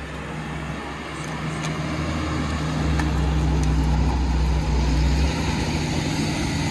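Front-end loader's diesel engine running under load, its low drone building over the first few seconds, then easing off about five seconds in.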